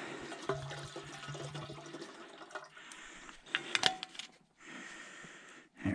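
Fuel pouring from a gas can into a Honda snowblower's fuel tank, a steady trickling for the first couple of seconds. After that come a few sharp knocks and clatters as the can is handled.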